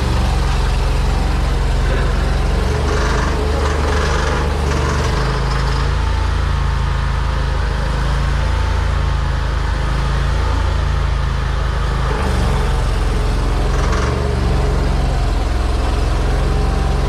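Engine of a high-pressure sewer-jetting machine running steadily: an even low hum with a hiss over it, and brief louder noisy spells about three to five seconds in and again near the end.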